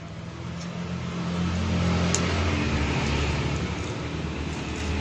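A motor vehicle engine running, growing louder over the first two seconds and then holding steady.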